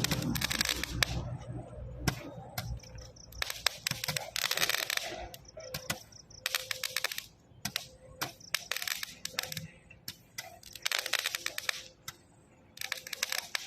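Consumer fireworks cake of scattering stars going off: after a loud low boom that fades in the first couple of seconds, bursts of rapid sharp crackles come every second or two.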